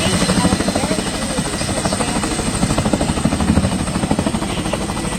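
Boeing CH-47 Chinook helicopter's tandem rotors beating in a fast, even rhythmic blade slap, with a steady high-pitched whine above it.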